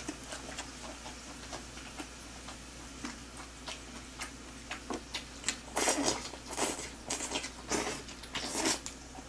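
Close-miked chewing of a mouthful of grilled pork belly and green onion kimchi: wet mouth clicks and smacks, sparse at first, then louder and quicker over the last few seconds.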